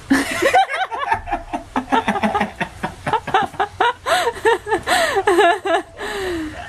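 Hearty human laughter breaking out suddenly, in rapid high-pitched bursts, trailing off into a long falling voice near the end.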